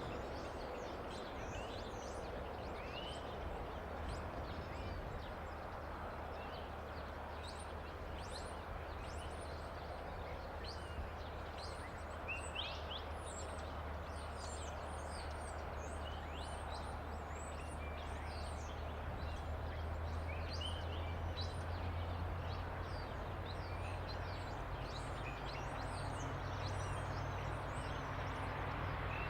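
Small birds chirping over the steady low drone of DC class diesel-electric locomotive 4323. The drone grows slowly louder toward the end.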